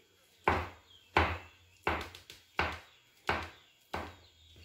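Fingertips pressing into bread dough in an aluminium baking tray, with a sharp knock at each press: six evenly spaced knocks, about one every 0.7 seconds.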